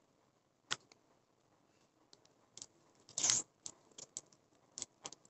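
Hands handling a foundation tube and its crinkly packaging: scattered small clicks and ticks, with a brief louder crinkling rustle about three seconds in.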